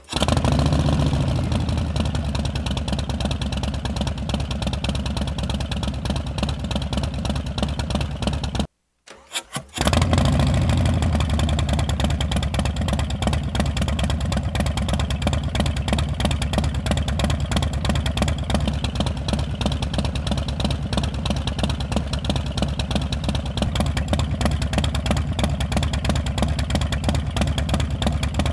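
A Harley-Davidson Milwaukee-Eight 114 V-twin with a Stage III kit idles through Vance & Hines Twin Slash slip-on mufflers. It runs first with the standard baffles and then, after a brief silent break about nine seconds in, with competition baffles. Each run opens with a short flare in engine speed that settles into a steady idle. At idle the two baffle sets sound so similar that the owner can't tell them apart.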